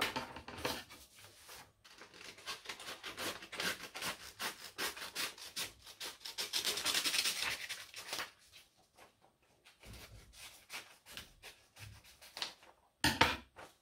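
A sheet of paper being handled, creased and cut with scissors: scratchy rustling and rubbing, densest about six to eight seconds in, then sparser, quieter snips of the scissors through the paper, with a brief louder rustle just before the end.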